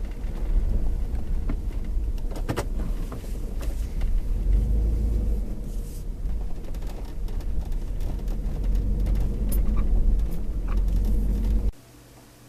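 Car driving: a steady low rumble of engine and road noise with scattered clicks and rattles, cutting off suddenly near the end.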